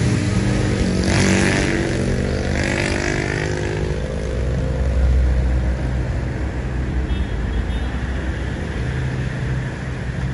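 Motor vehicle engines running and passing, with pitch sliding up and down in the first few seconds and a low rumble midway. A motorcycle engine comes up near the end.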